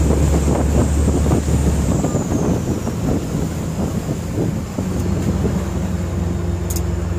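Motorboat engine running at speed while towing a parasail, with wind buffeting the microphone and water rushing in the wake. About two seconds in the engine note drops and a high whine falls with it, and from about five seconds in the engine runs at a new steady note.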